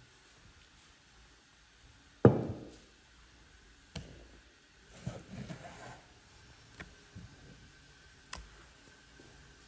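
Large knife cutting raw meat on a thick wooden cutting board. One heavy knock with a short ring comes about two seconds in, followed by several lighter knocks and taps.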